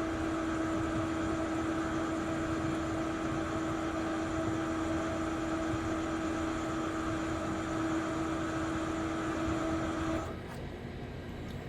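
Electric RV leveling jack motor running with a steady hum as it lowers the jack foot; it cuts off suddenly about ten seconds in.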